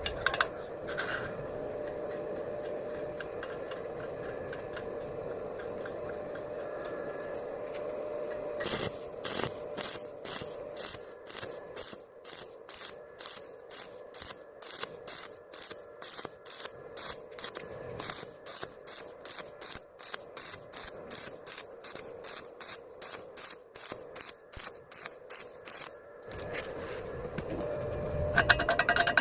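A steady hiss with a faint hum, then, about a third of the way in, a long run of rhythmic scraping strokes, about two a second. Near the end the steady hiss returns.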